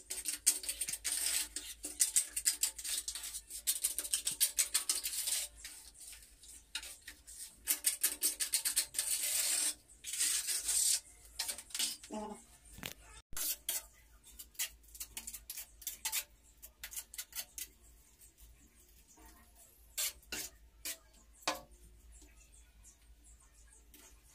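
Rapid scraping strokes and clicks of a tile-setter working wet mortar along the top edge of a row of wall tiles, in two long bouts, then scattered taps and clicks as a ceramic wall tile is handled. Faint music plays underneath.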